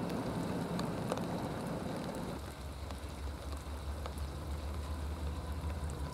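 Distant freight train noise, a steady rushing rumble. About two and a half seconds in it switches abruptly to a deeper, steady diesel locomotive rumble from an approaching train.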